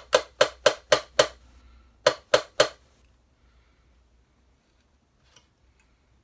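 Mallet blows knocking a 3D-printed ABS part loose from a plywood print bed, where it is stuck fast on an ABS-coated surface. Six quick sharp knocks, about four a second, then a short pause and three more.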